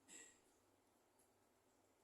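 Near silence, broken by one faint, short, high sound just after the start and a tiny tick a little over a second in.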